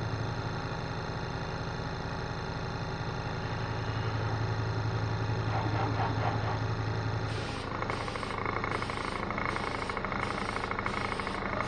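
Small electric bench air compressor running with a steady low hum while feeding a hand-held air spray gun. About seven seconds in the sound changes, and a hiss of air starts pulsing about twice a second.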